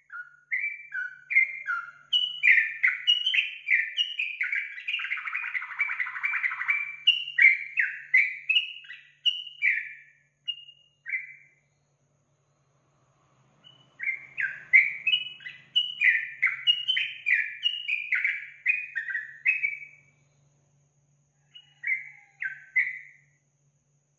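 Yellow-vented bulbul (trucukan) singing in quick runs of short chirping notes. The song falls silent for about two seconds near the middle, then runs again, with a short final phrase near the end.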